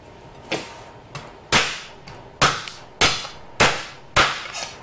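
Heavy knife chopping through the end of a veal chop's rib bone on a cutting board: a series of about eight sharp blows, roughly one every half second to second, a few of them lighter.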